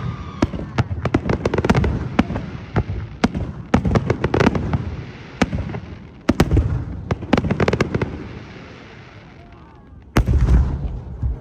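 Fireworks exploding overhead: a rapid series of sharp bangs and crackles that thins out after about eight seconds, then a loud new bang about ten seconds in.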